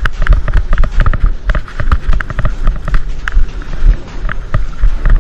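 Running footsteps close to the microphone, a few quick thuds a second, with equipment jostling and a low rumble.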